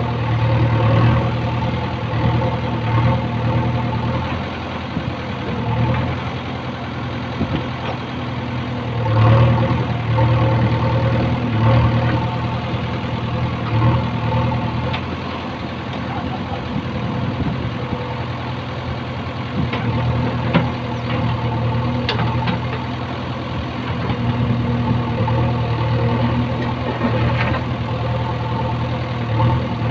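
JCB 3DX backhoe loader's diesel engine running under load as the backhoe arm digs, the engine note swelling and easing every few seconds with the hydraulic strokes. A few short, sharp knocks come through past the middle.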